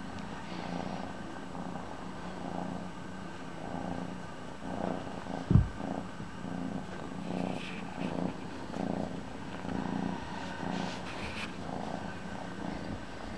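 Kitten purring close to the microphone, swelling and fading with each breath. One loud thump about five and a half seconds in.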